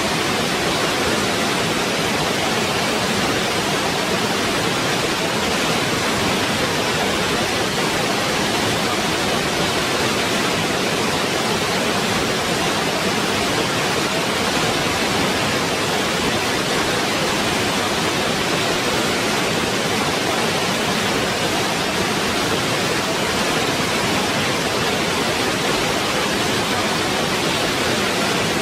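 Waterfall: a steady, dense rush of falling water, even in level throughout.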